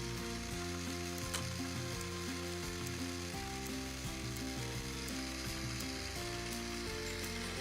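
Background music, a tune of short held notes stepping up and down, over a steady hiss, with a single click about a second in.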